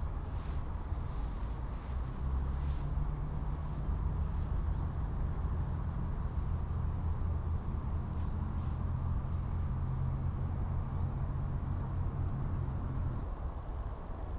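A small bird calling in the woods: short, high chirps of a few quick notes each, five times, heard over a steady low rumble.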